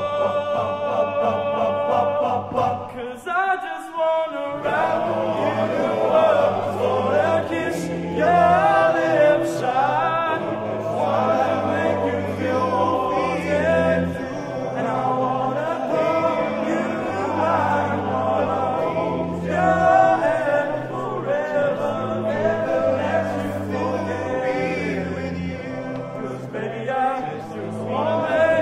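Male vocal ensemble singing in harmony, a lead voice over the group's low held notes. There is a short break about three to four seconds in, after which the low voices move through a steady pattern of held notes, changing every second or two.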